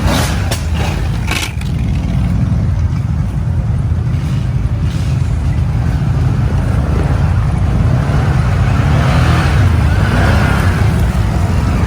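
ATV engine running steadily, with a few sharp knocks in the first second and a half.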